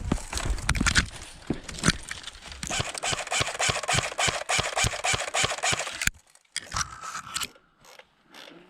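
Quick footsteps crunching through dry brush and leaves, with rustling, at about five steps a second; they stop abruptly about six seconds in, leaving a few faint rustles.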